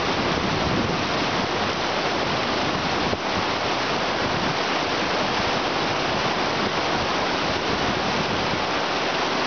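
Silt-laden glacial meltwater stream rushing steadily over boulders and cobbles.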